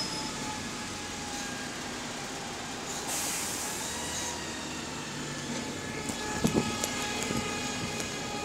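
Arriva DW-class double-decker bus with a Voith gearbox, drawing up and standing at the stop. Its diesel engine and driveline run with a steady hum and a thin whine. A burst of air hiss comes about three seconds in, and a few knocks and clatters come about two-thirds through.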